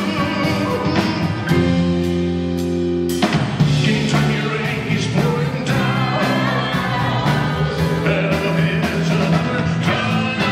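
Live rock-and-roll band playing a passage between sung lines on electric keyboard, drum kit and electric guitar, with a chord held for about two seconds near the start.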